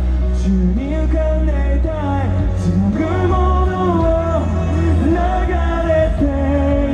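Male J-pop singer singing live into a microphone over amplified pop backing music with a steady low bass.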